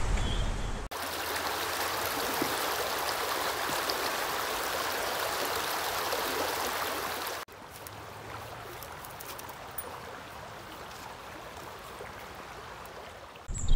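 A shallow stream rushes over a stony riffle, a steady hiss of moving water that cuts in abruptly about a second in. About seven seconds in it switches to a quieter, softer flow of water running over stones.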